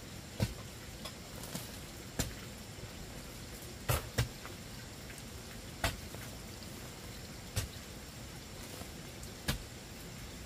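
Hoe chopping into hard, dry clay soil: about seven dull blows a second or two apart, one of them a quick double, over a steady background hiss.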